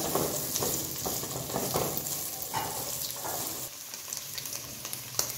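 Sliced smoked sausage and calabresa sausage sizzling as they fry in oil in a nonstick frying pan. For the first few seconds a plastic spatula stirs and scrapes through them in repeated strokes, then the steady sizzle goes on alone.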